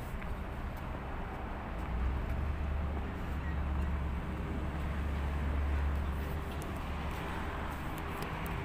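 Steady city street traffic noise, with a low rumble that swells for a few seconds in the middle.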